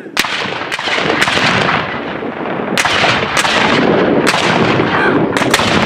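A line of Civil War–style field cannons firing in quick succession: about eight loud reports, irregularly spaced, with a rumble trailing each shot.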